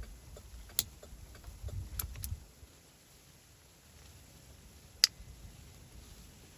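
A few sharp, isolated plastic clicks, the loudest about five seconds in, with faint handling rustle, from parts of a steering-column turn-signal switch being handled and fitted.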